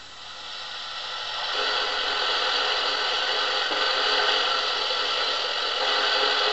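Recorded car engine idling in neutral with gearbox noise, played back through a small vintage record player's speaker; the noise grows louder about a second and a half in and shifts a little near the end as the clutch is pushed in and out. How the noise changes with the clutch is the test between worn gearbox bearings and a worn clutch thrust bearing.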